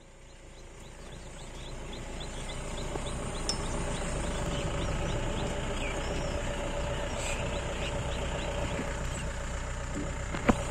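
Safari jeep's engine running steadily, fading in over the first few seconds, with a light regular high ticking and a few faint chirps over it. A single sharp knock near the end.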